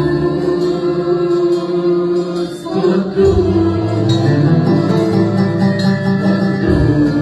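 Instrumental worship-song music with guitar and sustained chords, between sung verses.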